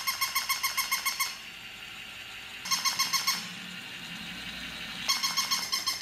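Battery-operated plush toy puppy giving its electronic yapping: rapid, even yaps at one fixed pitch, about eight a second, in three bursts, one through the first second, a short one around the middle and another starting about five seconds in.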